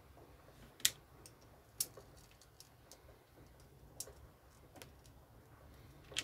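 Plastic LEGO bricks clicking as they are handled and pressed together by hand: about five sharp clicks at uneven intervals, the loudest about a second in, with fainter ticks between.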